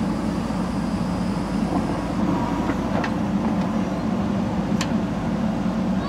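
JCB 3DX backhoe loader's diesel engine running steadily as the backhoe arm works, with a few sharp clicks in the middle.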